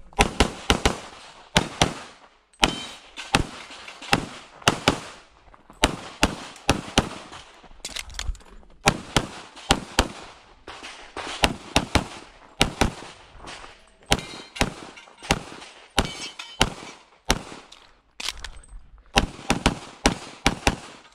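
An Infinity 2011 pistol in .40 S&W firing a rapid string during an IPSC stage run. The shots come mostly in quick pairs (double taps), with short pauses between groups, and each crack echoes briefly.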